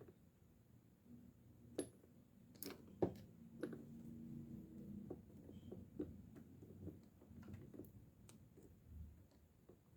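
Light, scattered clicks and taps of a spinning fishing reel's small parts and tools being handled during servicing, the sharpest about three seconds in.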